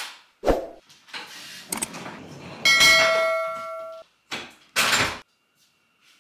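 A string of short, abruptly cut noises, among them a thud and a brief hiss. About two and a half seconds in, a bell-like chime rings out and fades for over a second before it cuts off suddenly.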